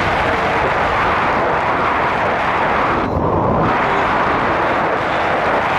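Steady rush of wind on the microphone mixed with road and engine noise from a moving vehicle; the higher hiss briefly dulls about three seconds in.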